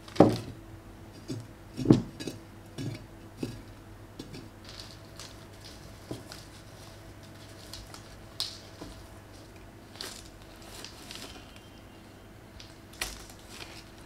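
Repotting handling sounds: flower pots knocked and set down on a paper-covered table, with loose soil and paper rustling. The two loudest knocks come in the first two seconds, and lighter clicks and rustles follow.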